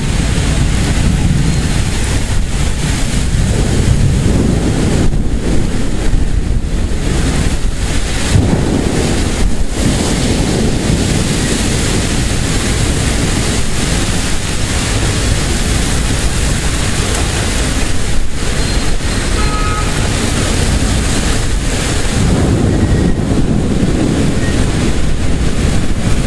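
Heavy rain and strong gusting wind of a severe thunderstorm, a loud, steady rushing noise.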